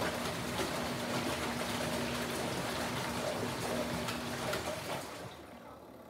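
Kuppet twin-tub portable washing machine agitating a load of towels: a steady motor hum with water sloshing in the wash tub. The motor stops about five seconds in and the sound falls away as the agitator pauses.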